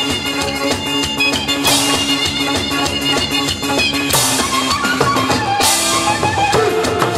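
A set of large Korean buk barrel drums beaten fast with wooden sticks, with about three cymbal crashes, over recorded backing music.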